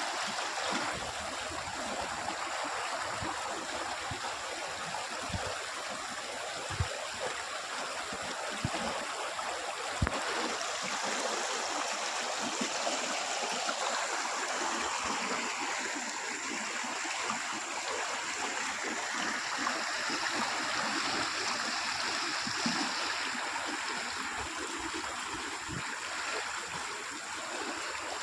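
Irrigation water running steadily into a flooded rice paddy, an even rushing and trickling, with a few soft low knocks.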